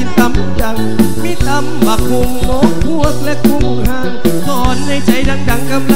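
Live luk thung band music from a mor lam troupe: a steady drum beat under a bass line, with a wavering lead melody above.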